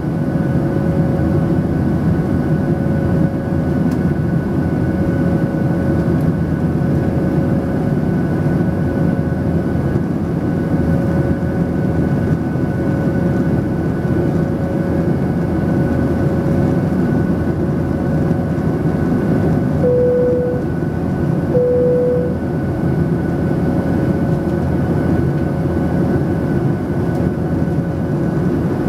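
Steady cabin drone of a Boeing 737-800 in the climb, heard from a seat over the wing: the CFM56 engines and the rushing air outside, with faint steady tones running through it. About two-thirds of the way in come two short beeps of the same pitch.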